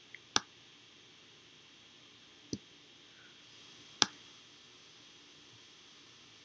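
Four sharp single clicks of a computer pointing device's button, placing pixels one at a time. The first is faint, and the loudest comes about four seconds in.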